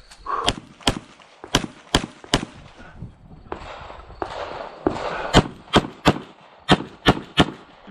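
Rapid pistol shots in two strings, about five roughly every half second and then about eight more, with a short pause and some rustling noise between them.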